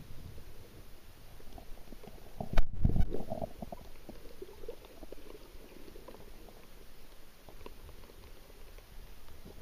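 Underwater noise picked up by a submerged camera: a low, crackling rumble of water movement with scattered faint clicks. About two and a half seconds in comes a louder burst of rumbling with a sharp click.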